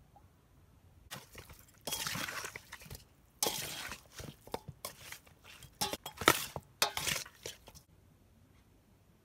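A metal spoon stirring raw seasoned turkey neck pieces in a stainless steel bowl: scraping against the steel, with many sharp clinks. It starts about a second in and stops about a second before the end.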